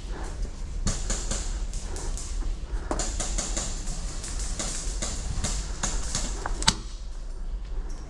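Irregular sharp ticks and cracks of airsoft gunfire, with BBs striking plywood walls, in scattered clusters, with one louder crack near the end.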